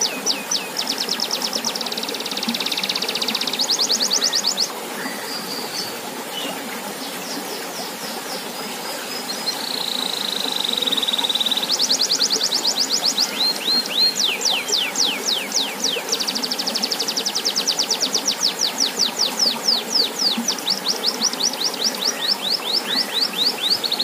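Domestic canary singing long, fast trills of repeated whistled notes, with a held whistle about ten seconds in, over the steady splashing of a fountain's stream falling into a pond.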